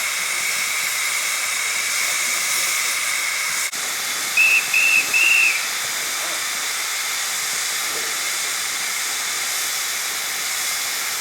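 Narrow-gauge steam locomotive hissing steadily with escaping steam, broken by three short, high whistle toots in quick succession about four and a half seconds in.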